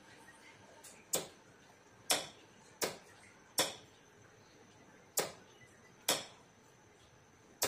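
A series of sharp clicks, each with a short ringing tail, coming at uneven intervals of roughly one second.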